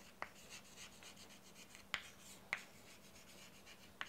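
Chalk writing on a chalkboard: faint scratching strokes with a few sharp taps as the chalk strikes the board.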